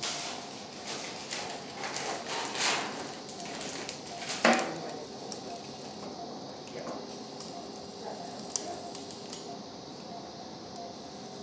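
Monopolar electrocautery pencil sizzling in several short bursts as it cuts through abdominal wall muscle, then a sharp clink of surgical instruments about four and a half seconds in. A faint steady tone carries on underneath afterwards.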